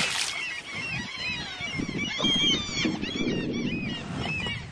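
A hooked pike thrashing and splashing at the water's surface beside the boat, loudest right at the start. Many short, repeated bird-like calls sound throughout.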